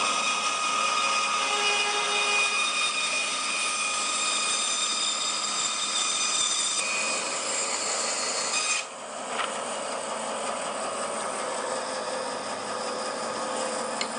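Bandsaw running and cutting through timber: a steady whining rush that dips briefly about nine seconds in, then carries on.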